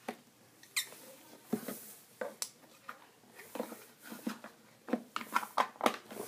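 Stretchy slime made from slime powder being squished and stretched by hand, giving irregular small wet clicks and squelches that come faster near the end.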